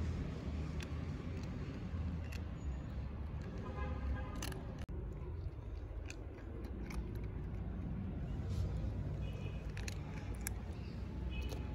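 A cat crunching dry kibble: a string of small, sharp crunches over a steady low rumble.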